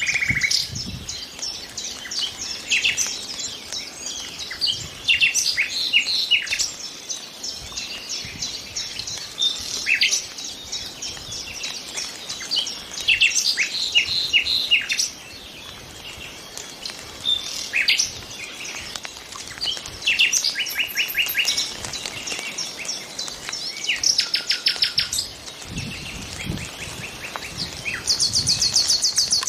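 Nightingale singing continuously in varied phrases, broken by fast trills of rapidly repeated notes, several of them near the end.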